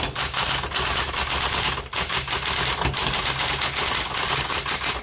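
Smith Corona Electra 210 electric typewriter being typed on fast: a rapid, unbroken run of key strikes over the steady hum of its running motor.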